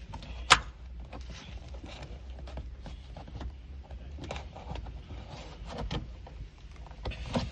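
Scattered clicks, taps and scrapes of hand tools working at a car door's plastic trim, with one sharp, loud click about half a second in.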